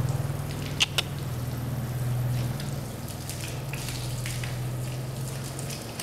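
Steady low machine hum with water running, typical of an equine water treadmill's pump, and two sharp clicks about a second in.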